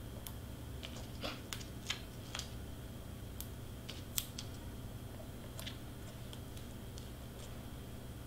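Light, irregular clicks and crackles of small cardstock pieces being handled and pressed together with foam tape, with the tape sheet picked up and set down, over a faint steady hum.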